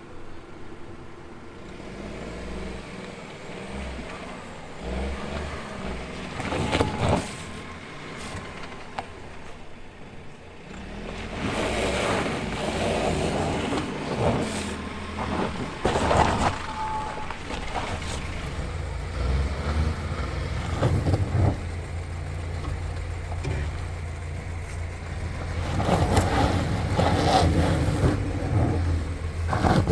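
Small 4x4 SUV driving off-road, its engine pulling under load with a low rumble that grows louder at times, with tyre and splash noise and several sharp knocks from the vehicle going over rough ground.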